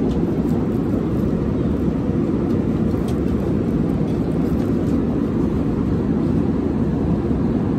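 Steady, deep drone of an airliner cabin in flight: engine and airflow noise, even and unbroken throughout.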